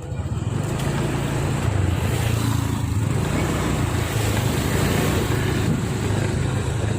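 Motorcycle engine running steadily under way, with wind rushing on the microphone.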